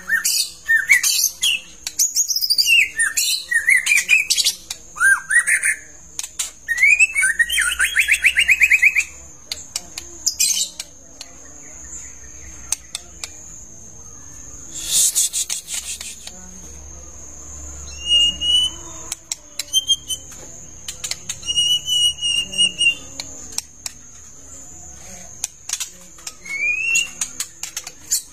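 White-rumped shama in full song: a rush of varied whistles, slurred glides and a fast rattling trill for the first nine seconds or so, then sparser short phrases of paired high notes and rising whistles near the end. A steady high-pitched tone runs under the second half, with a brief hiss about fifteen seconds in.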